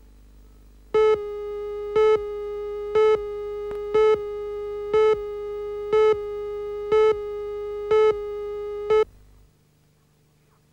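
Videotape countdown leader tone: a steady, buzzy electronic tone with a louder beep once a second, nine beeps in all. It cuts off suddenly about nine seconds in.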